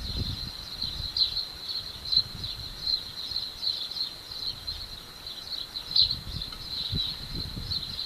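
Insects chirping in a steady high-pitched trill that pulses several times a second, over irregular low rumbling noise.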